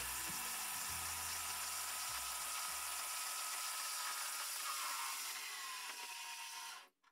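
Vertical bench saw cutting through a thin steel plate, a steady grinding hiss from the blade in the metal. Near the end the machine winds down with a falling tone and stops.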